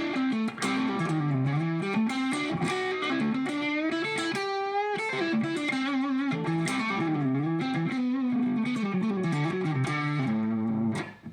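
Gretsch Electromatic electric guitar on its neck pickup, played through a compressor pedal used as a boost into a Klon-clone overdrive with its drive turned all the way down, into a Bugera T50 Infinium amp. It plays a picked melodic line of changing notes with a held, wavering note about halfway. The level stays even from note to note, then the playing stops abruptly near the end.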